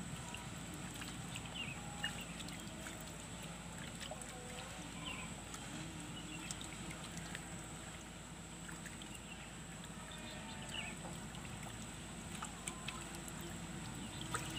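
Quiet rural outdoor ambience: faint short bird chirps at scattered intervals over a steady low background hum.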